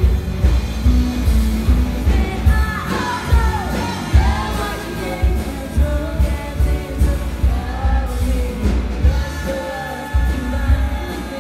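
Live rock band playing, with heavy bass and drums under a female lead vocal; a sung or played line slides down in pitch about three seconds in.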